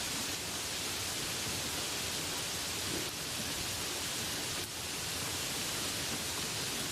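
Steady rain falling, an even dense hiss with no let-up.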